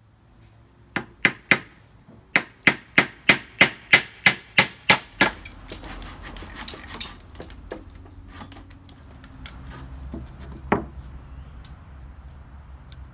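Hammer blows on wood: three strikes, a short pause, then a steady run of about ten strikes at roughly three a second. Lighter scattered knocks follow, with one more solid blow near the end, over a steady low background rumble.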